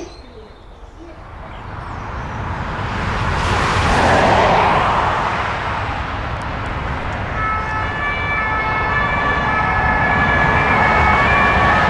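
Road traffic: a vehicle swells and passes about four seconds in, then a steady traffic roar holds, with a high multi-tone whine joining from about halfway.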